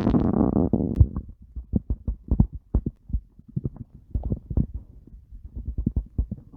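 Stomach growling: a rumbling growl over the first second, then a run of short, irregular gurgles and pops.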